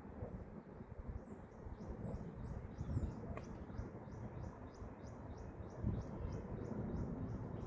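A bird's short high chirps repeating evenly, about three a second, over wind rumbling on the microphone.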